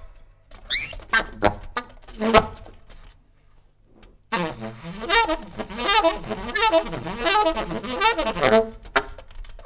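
Tenor saxophone improvising jazz: a few short, separate stabs and a high rising squeal, a near-quiet pause about three seconds in, then from about four seconds a fast, continuous run of wavering notes.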